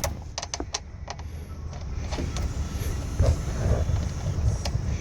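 Oil drain plug being threaded into a car's oil pan: a few light metallic clicks in the first second, then soft handling knocks, over a steady low rumble.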